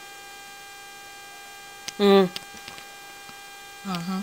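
Two short closed-mouth hums from a woman holding a mouthful of water, one about two seconds in and one near the end. Under them runs a steady electrical mains hum with faint high whining tones.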